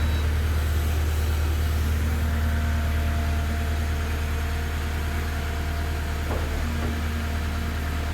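Kubota SVL90 compact track loader's diesel engine idling steadily with a deep, even hum.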